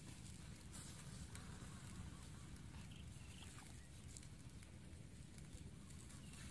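Faint outdoor background noise: a low steady rumble with scattered soft clicks.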